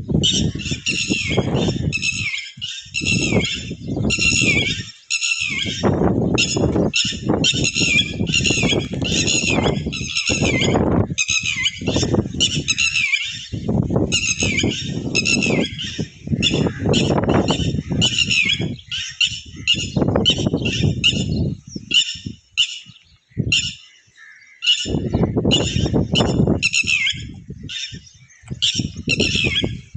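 A bird chirping in rapid, repeated high notes almost without pause, over low rumbling noise that comes and goes.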